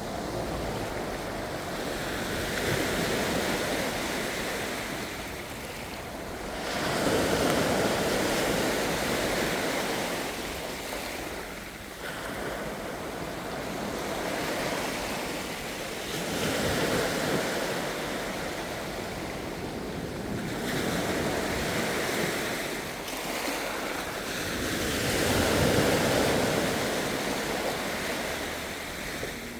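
Ocean waves breaking and washing on the shore, the surf noise swelling and easing every four to five seconds; the strongest surges come about a quarter of the way in and near the end.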